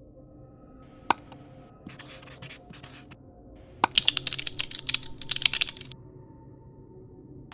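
Typing on a computer keyboard: quick runs of light key taps, with a couple of sharper single clicks.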